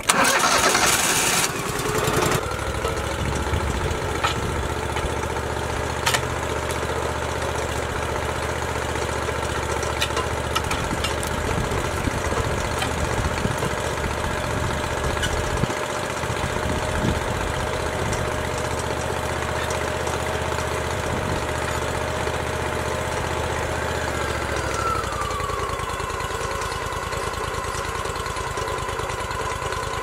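Wood-Mizer portable sawmill's engine started with the ignition key: it cranks briefly, catches within about two seconds and runs steadily. About 25 seconds in its pitch slides down to a lower, lighter running note.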